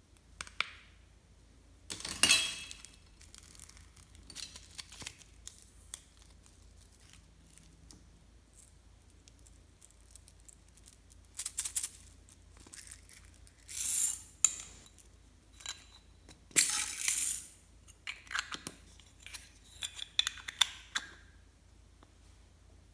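Clear slime being mixed and handled by hand: scattered small clicks and taps between a few louder wet, crackling squishes, the loudest about 2, 14 and 17 seconds in.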